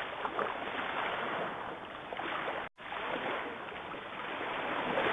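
Ocean waves washing on a beach: a steady rushing that swells and ebbs slowly. The sound cuts out completely for a split second a little past halfway.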